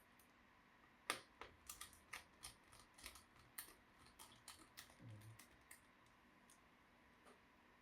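Faint, irregular run of small sharp clicks and taps on a laptop, over ten in about five seconds, starting about a second in, with one soft low thud near the middle.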